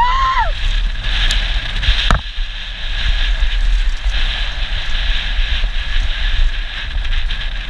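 Wind rushing over a helmet-mounted camera's microphone with the steady rumble of a downhill mountain bike running fast over a dirt trail. A sharp knock about two seconds in, from the bike hitting a bump.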